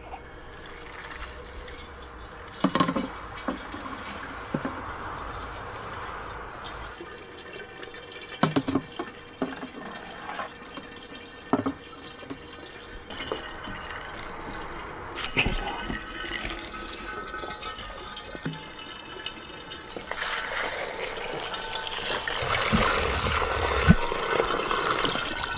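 Pressed rose-hip wine mash juice pouring: a thin stream splashing into a partly filled glass demijohn, then juice running from a basket fruit press's spout into a plastic funnel, loudest near the end. A handful of sharp knocks in the first half.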